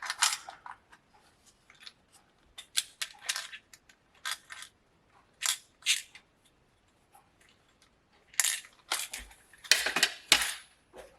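Small metal tool parts clicking and rattling as they are handled, likely a drill bit being fitted into a rotary tool: scattered sharp clicks in short clusters with quiet gaps, the busiest stretch near the end.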